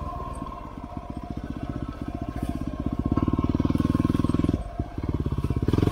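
Yamaha WR250R's single-cylinder four-stroke engine at low revs as the bike rides slowly, each firing pulse audible. The throttle is opened gradually from about two seconds in, eased off briefly near five seconds, then opened again.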